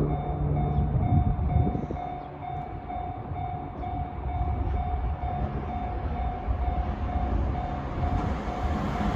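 Japanese level crossing warning alarm sounding its repeated two-tone ding, about three a second, while a train approaches. The rumble of the oncoming 521 series electric train grows louder near the end.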